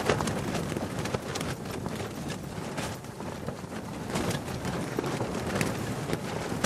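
Fabric flapping and fluttering in the wind: a dense run of irregular, quick snaps over a rushing wind noise.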